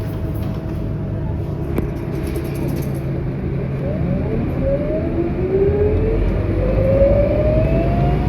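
Scania K230UB city bus's diesel engine and drivetrain heard from inside the cabin: a steady low rumble, then from about halfway a whine that rises in pitch in several steps and grows louder as the bus accelerates.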